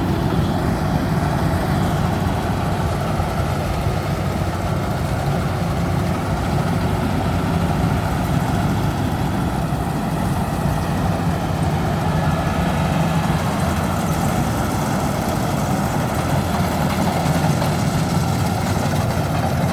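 Engine of a Bimo combine harvester running steadily at an even speed.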